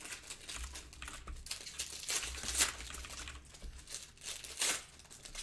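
Plastic wrapping crinkling as it is handled, in a few short crinkles.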